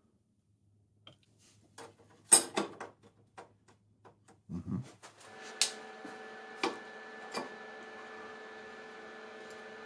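Scattered metallic clicks and clacks of hand tools and parts as the blade assembly of a small planer/thicknesser is worked on, one loud clack about two seconds in and a dull thump near the middle. From about halfway a faint steady hum with a few fixed tones sets in, with a few more clicks over it.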